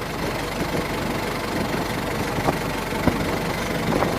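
Fishing boat's engine running at idle: a steady low drone with a few short knocks.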